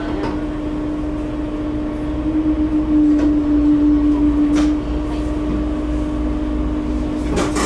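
Tosa Kuroshio 9640 series diesel railcar slowing into a station and coming to a stop: a steady running hum over a low rumble, a little louder in the middle, with a few sharp clicks.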